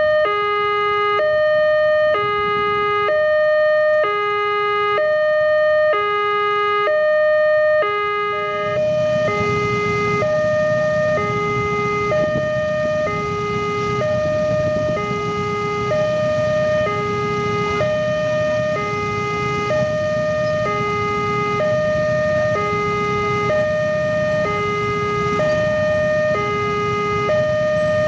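Railway level-crossing warning alarm sounding a repeating electronic two-tone high-low signal, about one pair every 1.4 s. From about nine seconds in, a low rumble joins underneath.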